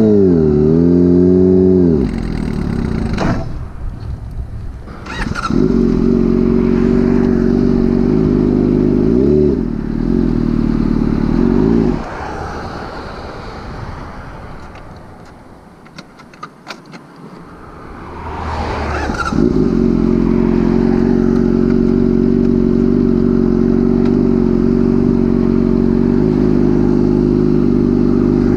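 Motorcycle engine running steadily, its revs dipping briefly a couple of times. It fades away in the middle and comes back loud after several seconds.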